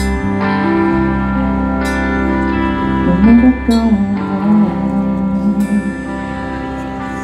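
Live rock band playing: strummed acoustic guitar, electric guitar and bass guitar holding chords, with a few sharp strums, and a man singing a short wavering line about three seconds in.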